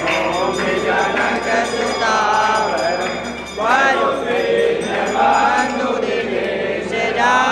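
Several voices singing a Hindu aarti hymn to Ram together, a devotional chorus with a new phrase rising about halfway through.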